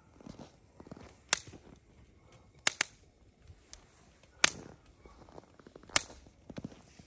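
Dry wood cracking with sharp snaps: five loud cracks, two of them in quick succession near the middle, over faint low rustling and handling.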